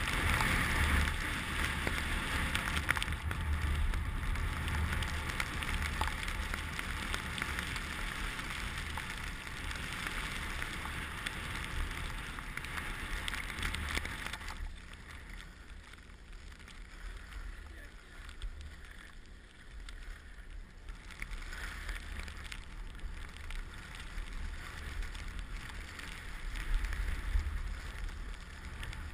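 Wind buffeting the microphone over the hiss of skis sliding on snow. The hiss drops away sharply about halfway through.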